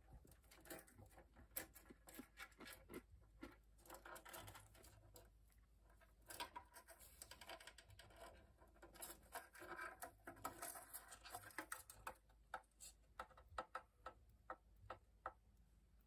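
Faint, irregular clicks and taps of a cockatiel's beak and feet on a plastic toy dollhouse as it pecks and moves about.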